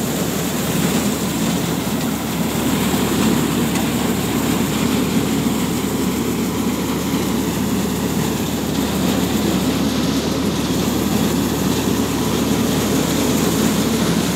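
Tractor-driven mobile rice mill running steadily: a continuous mechanical drone from the mill's machinery and the Powertrac Euro 50 tractor's diesel engine powering it.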